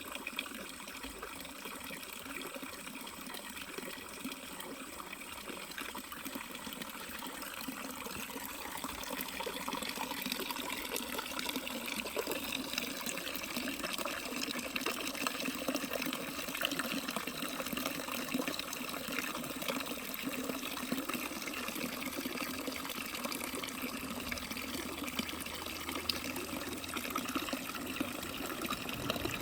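Running water: a steady rush that grows somewhat louder over the first ten seconds or so.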